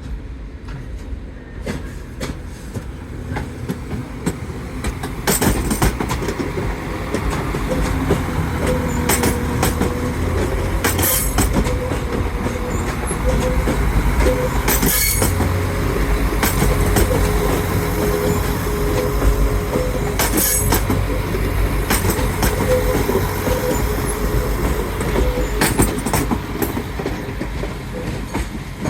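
Diesel passenger train running on the rails: a low rumble that builds over the first several seconds and then holds steady, with a steady whine and sharp clacks as the wheels cross rail joints every few seconds.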